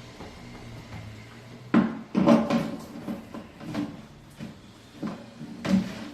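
A series of sharp knocks and clatters from hard parts being handled and set down, loudest about two seconds in and again near the end, after a low steady hum at the start.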